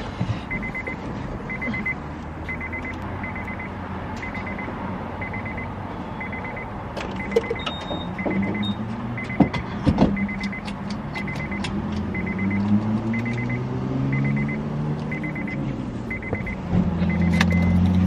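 A car's door-open warning chime dinging over and over, a little more than once a second, because the driver's door is open. A few clicks and knocks come around the middle, and a low vehicle hum grows louder in the second half.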